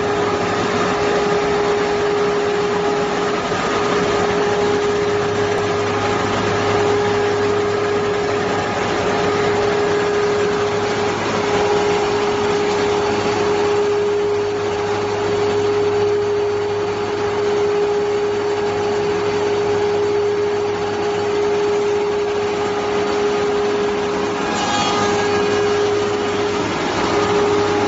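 A high-speed six-spindle four-side moulder (M623) running, its spinning cutter heads and feed rollers planing timber fed through it. It makes a steady machine hum with a constant whining tone.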